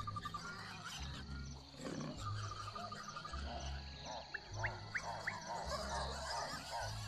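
Leopard growling low in bursts about a second long while feeding on a warthog. Birds chirp and trill over it.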